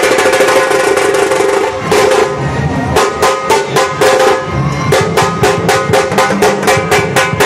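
Nashik dhol band playing: several large barrel drums beaten with sticks in a fast, even beat, which breaks off about two seconds in and picks up again as a steady rhythm a second later, over a sustained melody from a bulbul tarang (Indian banjo).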